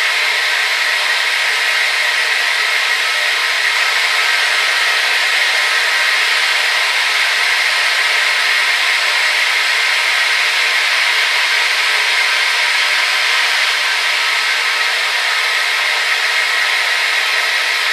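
Hair dryer running steadily: a constant whirring rush of motor and blown air, strongest in a hissing band in the upper mid-range with faint steady tones over it, used as white noise.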